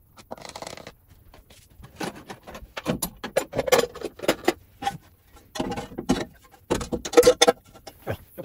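Metal rocker cover being set back onto the engine's cylinder head: a run of short metallic clinks and rattles as it is handled and seated, loudest in the second half.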